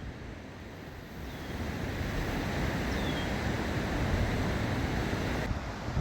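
Wind buffeting the microphone over lake water washing against the shore, growing louder about two seconds in, with a few faint high chirps.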